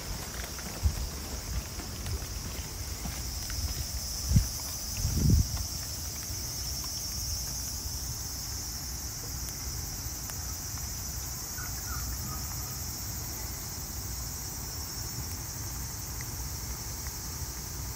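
Steady high-pitched insect chorus, a continuous shrill trill, with a few dull low thumps about four and five seconds in.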